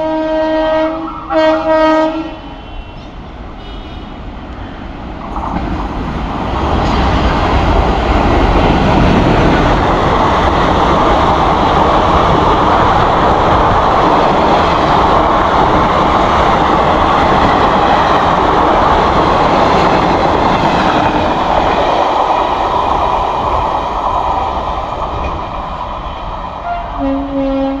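Train horn sounding two short blasts, then an express train of ICF coaches rushing past at speed, its wheels rumbling and clattering on the rails. The passing is loud for about fifteen seconds and then fades.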